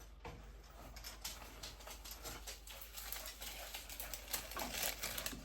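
Paper shopping receipt rustling and crinkling as it is handled: a run of soft, irregular crackles and clicks.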